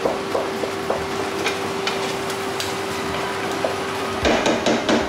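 A wooden spatula stirring and scraping a saucepan on the hob, with a burst of scraping and knocks about four seconds in. Under it runs a steady hum and hiss, with a few light taps before the stirring.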